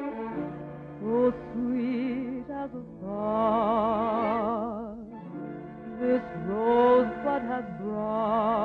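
Music: a melody in long held phrases with strong vibrato, several notes sliding up into pitch, over sustained lower tones.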